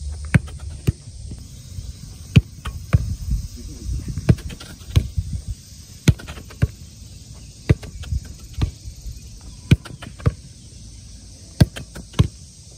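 Irregular sharp thumps and taps of feet and a soccer ball on an artificial turf pitch, about one or two a second and some much louder than others, over a steady high background hiss.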